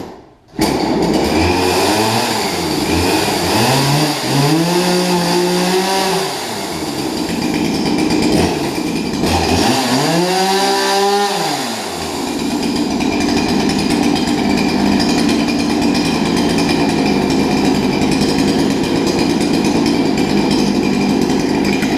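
A freshly repaired two-stroke chainsaw catches about half a second in and runs. It is revved up and back down twice, then keeps running steadily, showing that it runs again after the repair.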